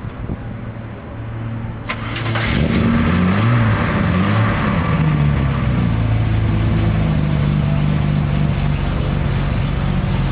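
Jaguar XJ saloon race car's engine starting with a sudden catch about two seconds in, revved in a few rising and falling blips, then settling into a steady fast idle.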